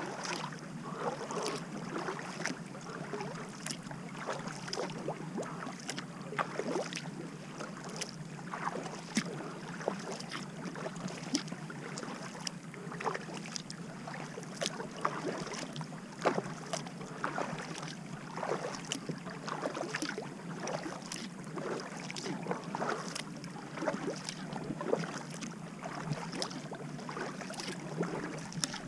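Kayak being paddled on calm water: many small splashes and drips from the paddle blades, with water rushing along the hull at the bow, over a steady low hum.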